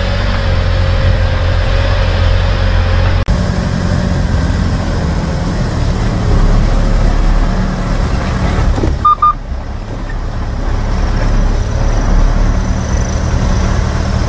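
A vehicle driving along a dirt road: steady engine and tyre rumble, cut off briefly about three seconds in, with a short dip and two faint beeps about nine seconds in.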